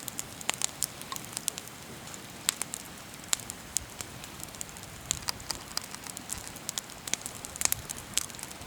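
Small wood campfire crackling: irregular sharp pops and snaps, a few a second, over a steady faint hiss.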